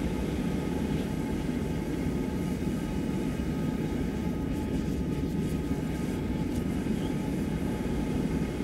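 Gas forge burner running: a steady, even rushing noise, strongest in the low range.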